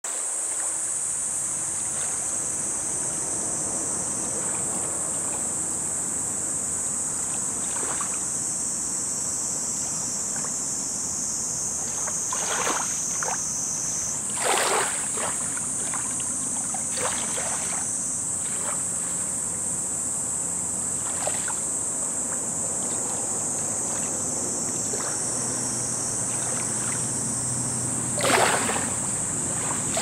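Small lake waves lapping on a pebble shore, with a few louder splashes as wavelets break over the stones, the biggest about halfway through and near the end. A steady high-pitched hiss sits over the water sound.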